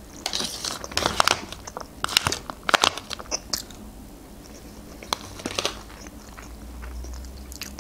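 Close-miked eating: a person chewing and crunching food with sharp wet crackles, in clusters near the start and again about five seconds in. A plastic fork scrapes the foil takeaway tray near the start.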